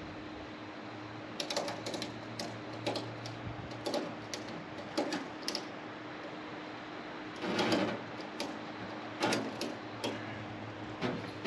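Irregular mechanical clicks and clatters in short bunches every second or so, with a louder rattling burst about eight seconds in, over a faint steady hum.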